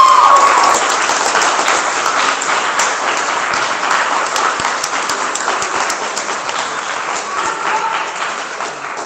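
Audience applauding, loudest at the start and fading away toward the end, with a drawn-out shout of cheering over it in the first moment.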